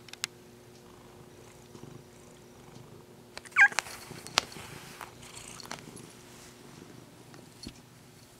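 Ginger-and-white cat purring close to the microphone, an uneven low rumble. A few sharp clicks and a brief high squeak come about three and a half seconds in, the loudest moment.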